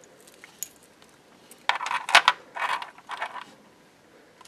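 Rhinestone bead bracelet with metal end caps and a steel clasp set down on a table, its metal parts and beads clinking and rattling in a few quick clusters near the middle.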